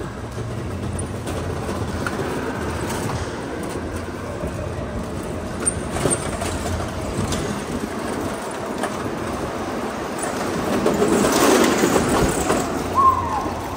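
Go-karts driving on a smooth concrete floor: a steady rolling rumble of small kart wheels, which grows louder as the karts bunch together in a turn near the end.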